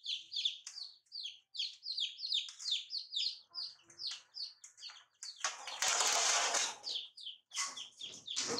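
Baby chicks peeping steadily, short falling high-pitched peeps about three a second. Just past the middle a loud rustling scrape lasts about a second and a half, with shorter scuffles near the end.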